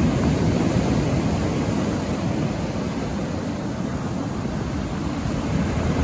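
Rough sea surf crashing and washing onto the shore, a continuous rushing noise that eases a little midway and swells again near the end as the next wave breaks.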